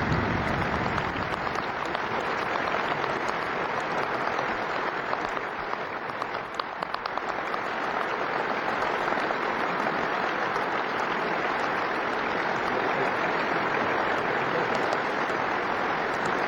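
Sustained applause from a large hall full of people clapping, dense and steady throughout. The recording is played at double speed.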